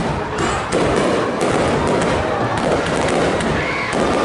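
Fireworks display: a dense, continuous barrage of shell bursts and crackling reports with no break.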